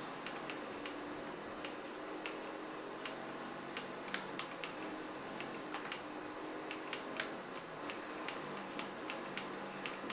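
Typing on a Kzzi K75 gasket-mounted mechanical keyboard: irregular keystroke clicks, two or three a second.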